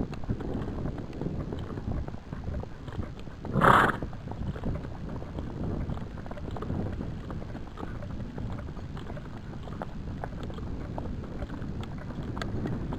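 Hoofbeats of a gaited horse on a dirt trail in a steady, even rhythm, heard from the saddle. A brief louder sound stands out a little under four seconds in.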